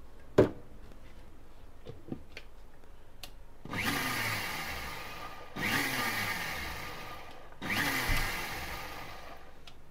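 Sujata mixer grinder run in three short pulses, its motor spinning up and winding down each time, blending a split egg-and-oil mayonnaise mix back into a fresh egg in the steel jar so that it thickens. A single knock comes about half a second in.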